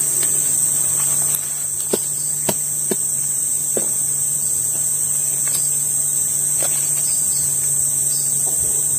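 Loud steady high-pitched drone of tropical insects, with a few short sharp knocks of a machete blade against a durian's spiky husk as it is worked open.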